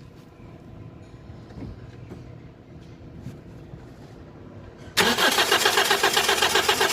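Toyota Corolla's starter turning the engine over, coming in suddenly and loud about five seconds in with a fast, even pulsing. This is a start attempt made while a loose engine ground wire, suspected as the cause of the intermittent no-start, is held in place by hand.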